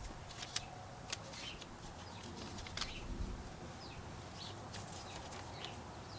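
A paper envelope being opened with a letter opener and the card drawn out. There are a few sharp crisp crackles of paper in the first three seconds and softer rustles after.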